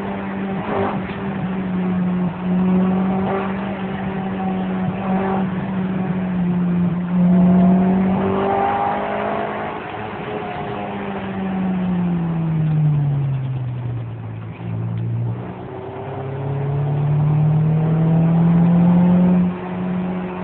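Honda Integra Type R DC2's B18C6 four-cylinder VTEC engine heard from inside the cabin under way, over road noise. The engine note holds steady, then falls in pitch over a few seconds past the middle as the car slows, and rises again as it accelerates.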